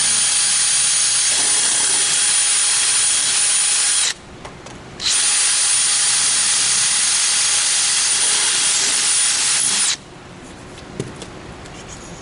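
Power drill fitted with a 9/64-inch bit, running in two steady high-pitched runs of about four to five seconds each with a one-second pause between them, as it drills the pilot holes for the kiln lid latch's backer plate. It stops abruptly near the end, followed by a single small click.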